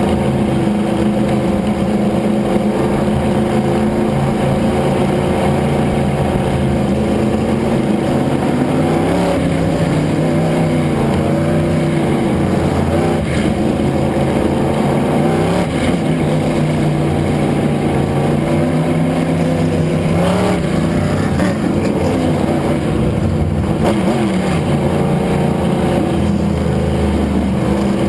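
Race car engine running hard on a qualifying lap, its pitch falling and climbing again several times as the throttle is lifted and reapplied.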